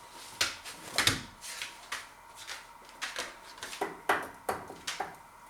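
Close-up eating: irregular wet chewing clicks and smacks, about two or three a second, one louder smack about a second in.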